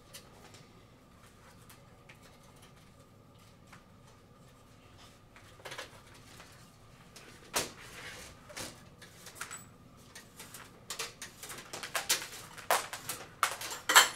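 Scattered clicks and knocks of a metal-framed stained-glass light fixture and its wiring being handled and tipped upright on a hard floor, sparse at first and busier near the end, the loudest knock just before it ends.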